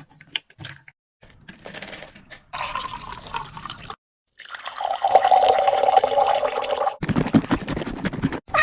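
Water running or pouring, in a few separate stretches broken by abrupt cuts; the longest and loudest stretch is in the middle.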